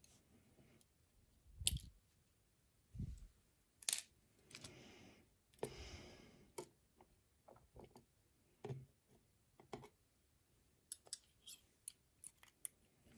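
Quiet metal handling of a lock and lockpicking tools: scattered light clicks and taps, two short scraping sounds about four and six seconds in, and a quick run of clicks near the end.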